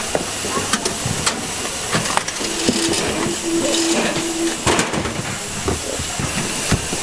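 Steady hiss of a packing floor with scattered knocks and clatter as strapped cardboard cartons are handled. A steady hum sounds for about two seconds around the middle.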